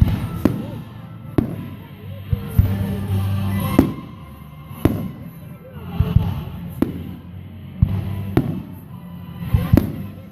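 Aerial fireworks shells bursting: about a dozen sharp bangs at irregular intervals, roughly one a second, some with a short echo.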